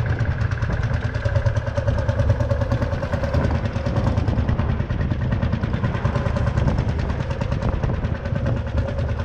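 Lanz Bulldog tractor's single-cylinder two-stroke hot-bulb engine running as the tractor drives slowly past, with a fast, even beat.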